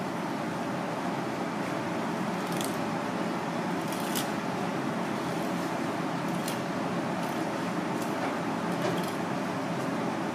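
A long kitchen knife slicing a fillet off a whole fish on a cutting board, with a few faint clicks and scrapes as the blade works along the bones and scales, over a steady background noise.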